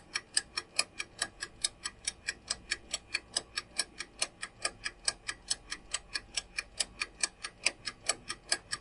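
Countdown-timer sound effect: a clock ticking fast and evenly, about six ticks a second, while the answer time runs down.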